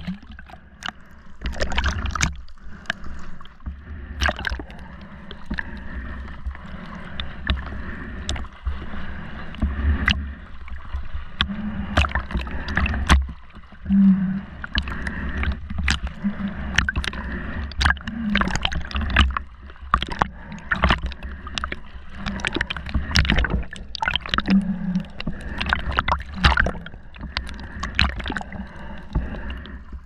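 Underwater sound of a snorkeler's camera beneath the surface over a coral reef: a muffled low rumble of moving water with frequent sharp clicks and crackles, and a few short low hums now and then.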